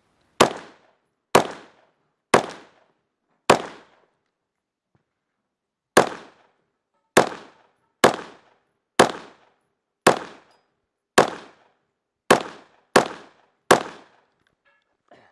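A long gun fired one shot at a time at targets, about thirteen shots roughly a second apart, each with a short echoing tail. There is a pause of a couple of seconds after the fourth shot, and two shots come closer together near the end.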